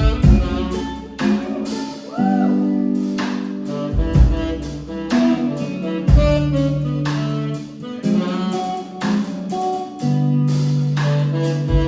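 Instrumental band music in a jazzy style: held melody notes over a steady backing, with drum hits every couple of seconds.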